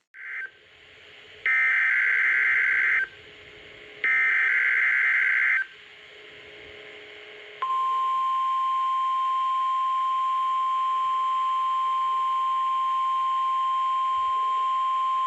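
NOAA Weather Radio alerting sequence: two harsh digital data bursts of the SAME header, each about a second and a half long and a second apart, then about two seconds later the steady single-pitch weather radio warning alarm tone begins. Together they signal the start of a (practice) tornado warning broadcast.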